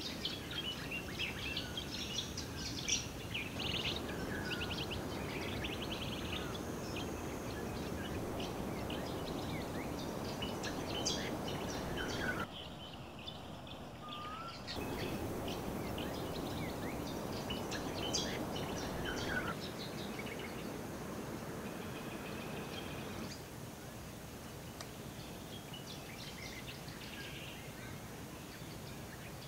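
Wild birds chirping and calling, many short chirps and a few sliding calls, over a steady background hiss of bush ambience. The background changes abruptly a few times, where separate recordings are cut together.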